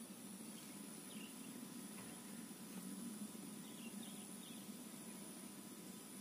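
Faint outdoor ambience: a steady high-pitched insect drone over a low background hum, with a few faint short bird chirps about a second in and around four seconds in.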